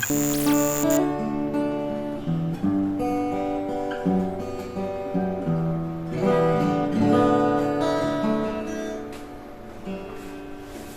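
Clifton A2 Series acoustic guitar being played: strummed chords and picked notes ringing out, with a loud chord at the start and another about six seconds in, then the notes fade near the end.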